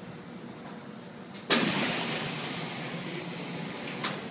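Machinery noise: a faint steady high whine stops and a sudden loud rushing noise starts about a second and a half in, then fades over the next few seconds, with a sharp click near the end.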